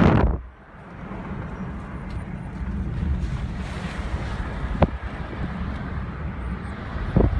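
Steady low rumbling noise with wind buffeting the microphone, and a single sharp click about two-thirds of the way through; the noise gets louder and gustier near the end.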